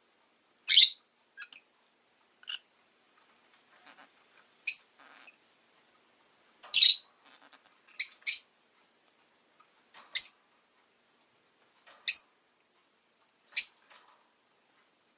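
Rosy-faced lovebird giving short, sharp, high chirps, one every second or two, with near silence between calls.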